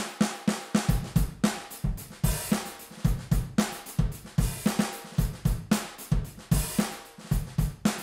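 Sampled DS Drum acoustic kit from the RCS Essentials library, played through its "Slow Tom" preset, running a busy groove of kick, snare and hi-hat. Bright cymbal hits come in twice, about two and six and a half seconds in.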